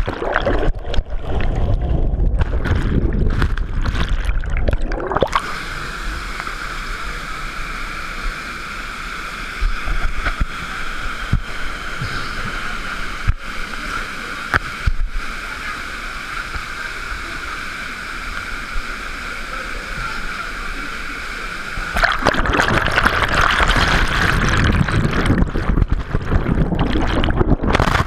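Rushing, splashing water of a mountain waterfall and stream, close to the camera, a steady churning rush that gets louder and fuller near the end.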